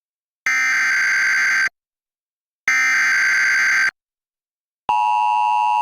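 Emergency Alert System SAME header: two bursts of data tones, each a little over a second long with a second's silence between. About five seconds in, the steady two-tone EAS attention signal begins.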